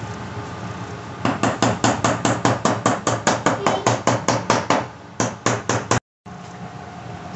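Rapid, even tapping on a container, about five taps a second, starting about a second in and stopping about six seconds in.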